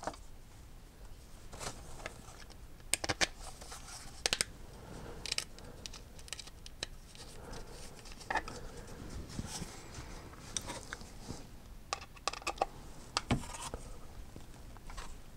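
Scattered light clicks, taps and scrapes of small laser-cut wooden parts, rods and hardware being handled and fitted together by hand, with a few sharper clicks.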